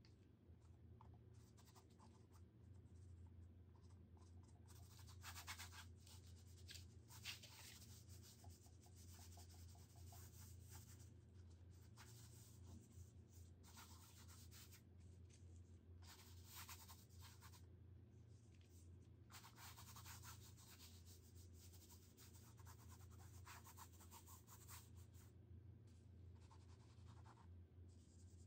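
Gloved fingers rubbing paint across a canvas: faint scratchy strokes, each lasting about a second, repeating on and off, over a steady low hum.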